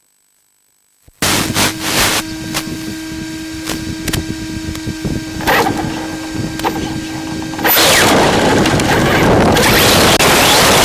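Electric Traxxas Slash 4x4 RC car driving, heard close up: after a short silence the sound cuts in suddenly with a steady whine, rattles and knocks, and about two thirds through it turns into a louder, even rushing noise as the car speeds over the ground.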